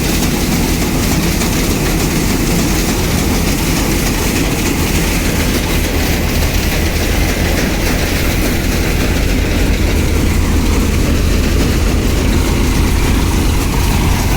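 Wheat harvesting machine running steadily: a constant low engine hum under a continuous mechanical rattle.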